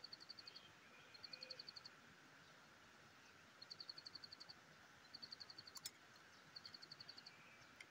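Faint, repeated high-pitched trills from a small animal calling. Each trill is a quick run of about eight ticks at a steady pitch, and there are five of them spaced a second or two apart.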